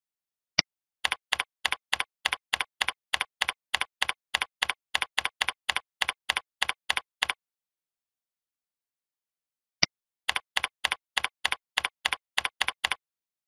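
Computer keyboard typing: a single sharp mouse click, then a run of evenly spaced, identical keystroke clicks, about four a second for some six seconds. After a pause of about two and a half seconds, another mouse click and a shorter run of keystrokes.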